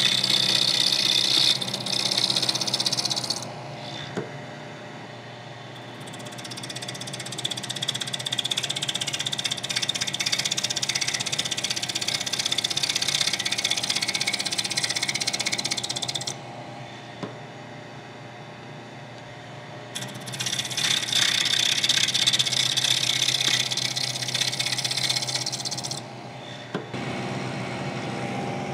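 End mill in a vertical milling machine cutting a bronze crank arm, a harsh hissing chatter heard in three long stretches, with the spindle motor humming steadily in the pauses between cuts.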